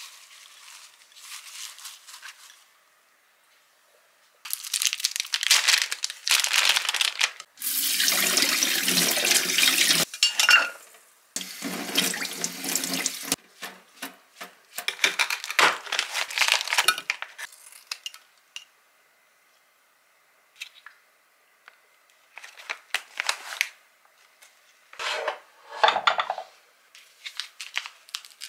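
Kitchen faucet running into a sink in several spurts while perilla leaves are rinsed under it, the water splashing in the basin. Near the end come a few short rustles of plastic wrapping being handled.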